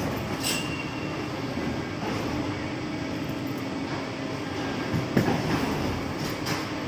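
Airport baggage-handling conveyor belt running steadily, a continuous mechanical rumble, with a few sharp knocks as suitcases pass through the rubber flap curtain.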